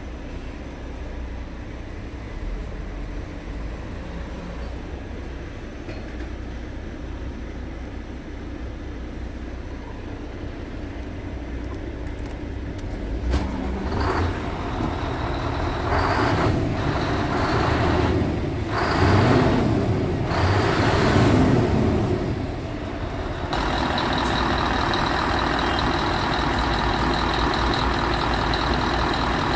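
Scania R truck's diesel engine idling, revved twice about two-thirds of the way in with the pitch rising and falling each time, then running steadily louder with a thin high whine near the end.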